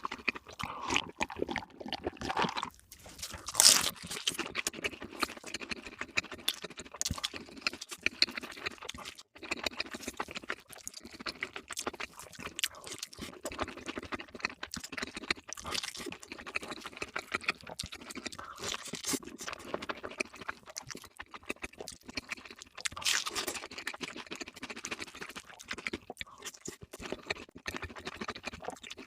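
Close-miked eating sounds: crunching and chewing of crispy fried food, with dense crackling throughout and several louder crunchy bites every few seconds.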